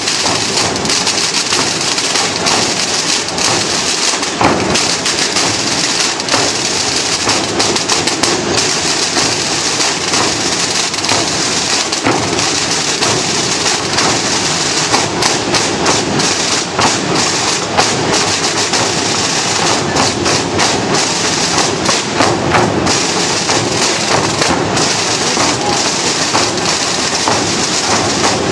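A large corps of marching drums (timbals) playing together. The sound is a loud, unbroken massed drum roll, with many sharp strokes running through it.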